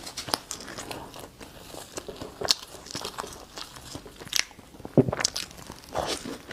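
A person chewing and biting food close to the microphone: irregular crunchy bites and mouth clicks, with the sharpest crunches about two and a half, four and a half and five seconds in.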